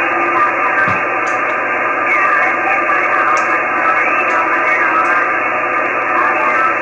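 Icom IC-9700 transceiver's speaker playing the XW-2B linear transponder's single-sideband downlink: a steady, narrow, radio-like hiss with faint wavering tones in it.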